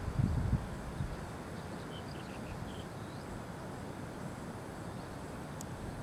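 Wind on the microphone, a low buffeting gust in the first half-second settling into a steady outdoor hiss of wind, with a few faint high chirps about two seconds in.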